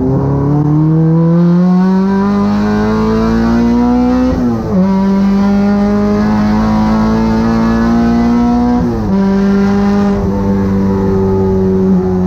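A Honda Civic race car's K24 four-cylinder engine under hard acceleration. The pitch climbs steadily and drops sharply at two upshifts, about four and a half and nine seconds in, then holds nearly level and sags slightly near the end.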